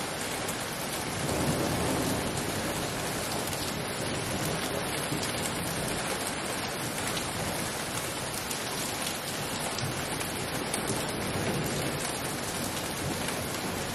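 Heavy rainstorm with small hail mixed in, a steady hiss of downpour. A low rumble of thunder swells about a second and a half in.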